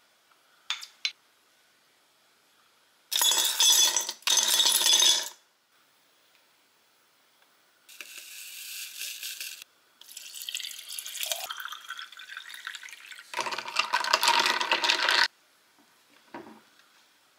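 Ice cubes clattering into a glass mason jar in two loud bursts, then powdered kombucha shaken in from a stick sachet with a soft hiss. Water is poured over the ice with a rising pitch as the jar fills, then ice rattles against the glass as the drink is stirred.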